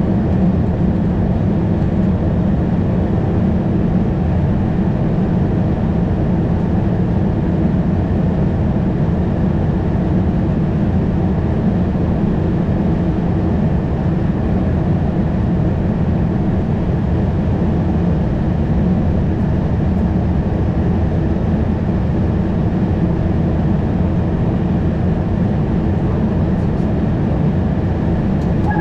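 Steady low rumble of cockpit noise in an Airbus A220, engines and airframe, at an even level with no change.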